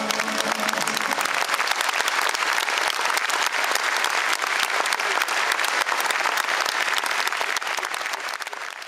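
Audience applauding after a song, as the band's last note dies away in the first second. The clapping is dense and steady, then fades out near the end.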